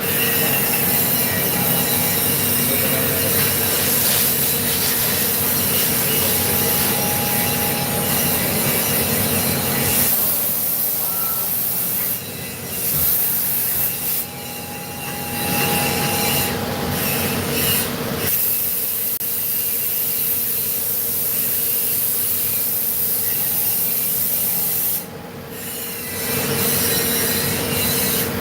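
CNC vertical machining centre cutting metal: a continuous rubbing, grinding noise with steady squealing tones, easing off briefly a few times.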